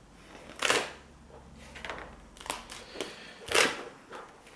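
Paper pages of a spiral-bound wall calendar being flipped over by hand, swishing and rustling three times as the pages turn.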